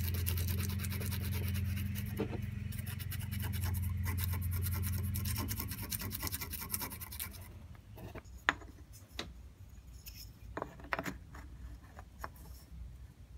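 Sandpaper rubbed by hand in quick back-and-forth strokes over a small wooden knife-handle scale, a fast scratchy rasping that stops about seven and a half seconds in. Then a few light knocks and clicks as the wooden piece is handled and set in a bench vise, the sharpest about eight and a half seconds in.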